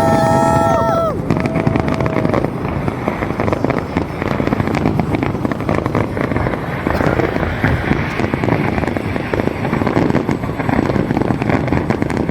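Fireworks going off in dense, continuous crackling and popping. At the start, a held whistling tone ends about a second in.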